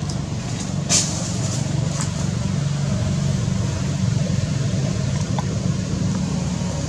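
Steady low engine rumble of distant motor traffic, with one sharp click about a second in.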